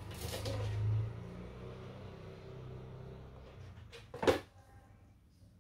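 Handling noise of small objects being moved about and rummaged, with a low rumble in the first second. One sharp knock a little over four seconds in.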